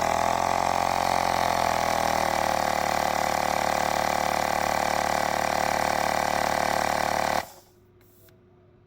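Portable electric tyre inflator running steadily, its small motor-driven compressor pumping air into a bicycle's rear tyre toward a preset 45 psi. The pitch sags slightly in the first couple of seconds, then the motor cuts off abruptly about seven and a half seconds in.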